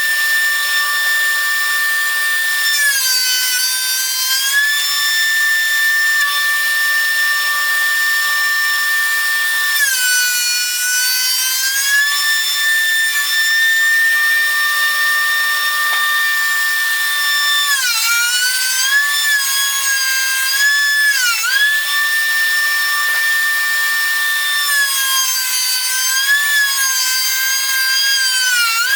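DeWalt thickness planer running with a steady high motor whine. The pitch sags several times for a second or two as white oak boards feed through and load the cutterhead, then recovers.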